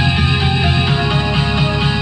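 Music: a loud electronic dance track in an instrumental stretch, with guitar and heavy bass.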